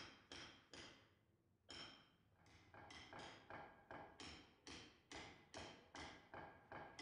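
Faint background music: a struck or plucked string instrument playing single ringing notes that each fade away, a few slow notes at first, then a quicker run of about four notes a second from a couple of seconds in.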